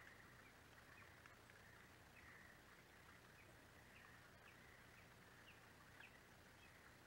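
Near silence: faint outdoor ambience with a steady faint high hum and scattered short, faint chirps.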